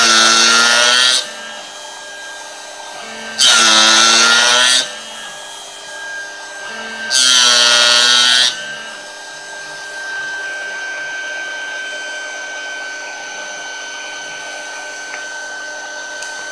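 CNC milling spindle driving a 0.8-module disc gear cutter through a brass gear blank. There are three loud, screeching cutting passes about a second and a half long, roughly three and a half seconds apart, each cutting a tooth gap. Between the passes and after the last one, only the spindle's steady high whine remains.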